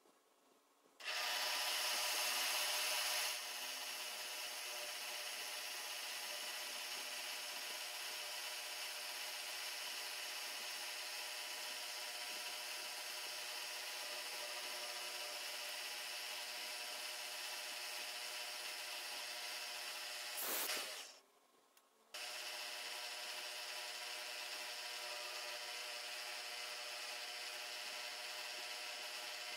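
Milling machine spindle running steadily with a small drill bit cutting holes into a metal casting, making a steady whine with a cutting hiss. It is louder for the first couple of seconds, cuts out briefly about two-thirds of the way through, then runs on.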